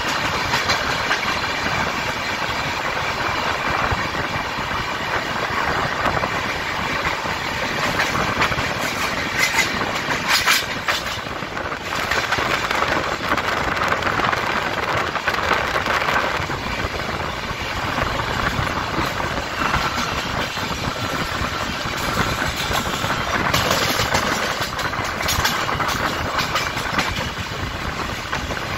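Passenger express train running at speed, heard from an open coach doorway: a steady rush of wheel and rail noise, with bursts of sharp clatter twice as the coach rolls over track joints and points.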